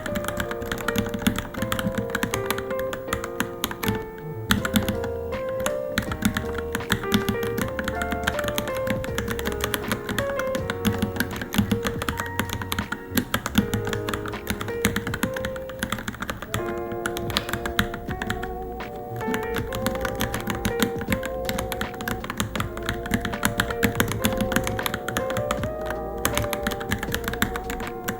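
Continuous fast typing on a Varmilo Minilo mechanical keyboard, a dense run of key clicks, over background music with a melody.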